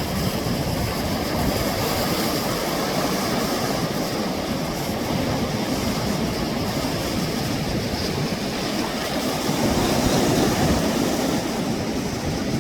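Sea waves washing onto the shore: a steady rushing sound that swells briefly about ten seconds in.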